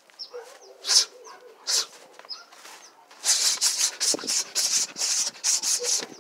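A person shadowboxing: short swishing, hissing bursts with each punch, from sharp exhales and the rustle of arms and clothing. There are a few spaced bursts, then a fast flurry from about three seconds in until near the end.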